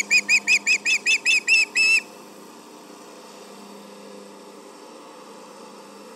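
Osprey calling: a rapid series of about a dozen high, whistled chirps, around five a second, that stops about two seconds in.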